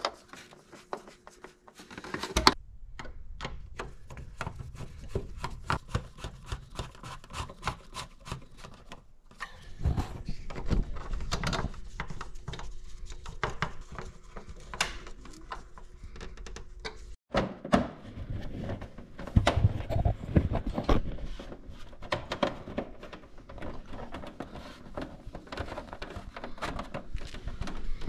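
Screwdriver driving screws into a Honda Gold Wing's plastic lower fairing panels, with many small clicks, taps and knocks as the panels are handled and fitted.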